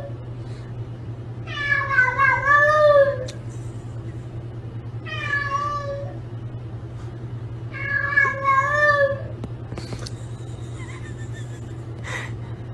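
Domestic cat meowing three times in long, wavering calls, the first and longest about a second and a half in, over a steady low hum.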